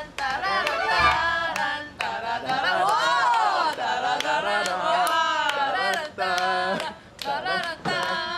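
A person singing in a warbling voice that slides up and down in pitch, broken by several sharp hits in the first two seconds and again near the end.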